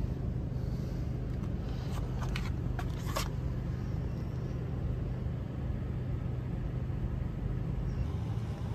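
A motor vehicle's engine idling: a steady low rumble with a constant low hum, and a few faint clicks about two to three seconds in.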